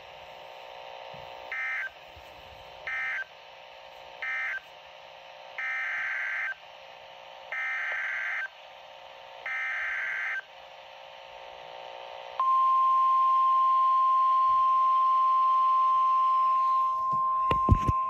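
Midland weather alert radio playing NOAA Weather Radio SAME digital tones. First come three short data bursts, the end-of-message code closing one warning, then three longer bursts, the header of the next warning. About twelve seconds in, a steady single-pitched warning alarm tone starts and holds, with a few sharp clicks near the end.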